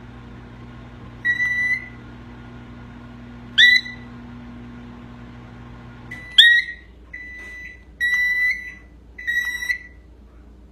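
Cockatiel whistling a string of about six short, clear notes, several swooping up at their start, with the notes coming closer together in the second half.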